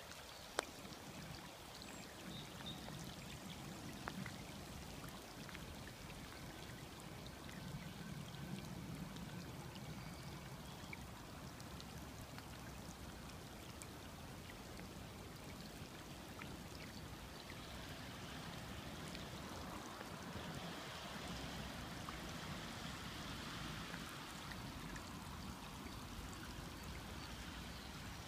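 Swollen River Thames floodwater flowing with a steady rushing noise that grows a little louder in the second half. One sharp click about half a second in.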